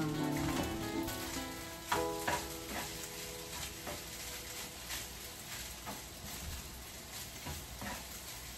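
Food sizzling in a frying pan while it is stirred, with a spatula knocking against the pan a few times.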